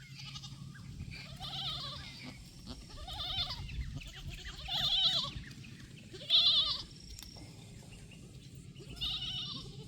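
Goats bleating: about five wavering, quavering calls spread a second or two apart.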